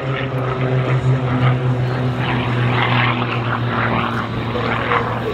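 Edge 540 aerobatic plane's piston engine and propeller giving a steady low drone as it pulls up into a vertical climb, with a rougher buzz over the top for a couple of seconds partway through.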